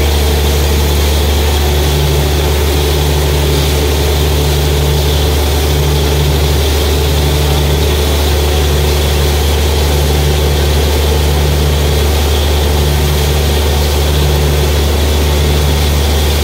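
Borewell drilling rig running loud and steady, its engine and air compressor blasting water and mist up out of the borehole with a continuous hiss; a low throb comes and goes about once a second.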